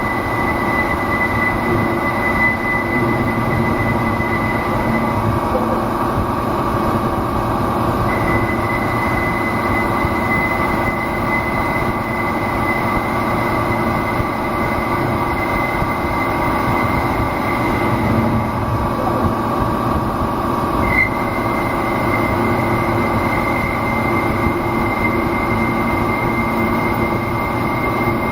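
CK6440 slant-bed CNC lathe running a machining cycle: a steady loud mechanical running noise with a high, thin whine over it. The whine stops for a few seconds near the start, comes back, and shifts slightly in pitch about two-thirds of the way through.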